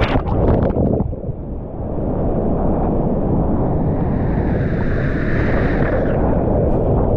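Loud rushing whitewater of a river in high flood, heard close on a GoPro, with a few sharp splashes in the first second and a steady rush after.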